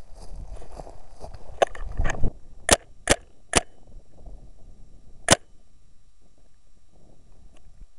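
Paintball marker firing sharp pops: two mixed with rustling through brush about two seconds in, then three quick shots about half a second apart, and a last shot a couple of seconds later.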